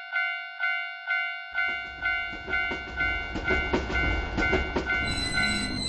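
Japanese railroad crossing warning bell going "kan-kan", struck about twice a second. About a second and a half in, a passing train's low rumble and clickety-clack of wheels join it, and near the end a high whistle-like tone sounds.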